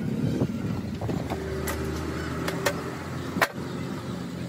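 A steady low mechanical hum with about six sharp clicks spaced irregularly over it, the loudest about three and a half seconds in.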